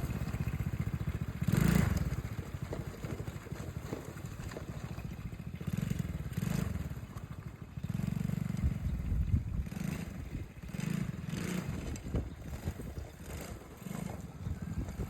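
ATV engine running with an uneven, rising and falling low rumble, mixed with scrapes and knocks from rough ground.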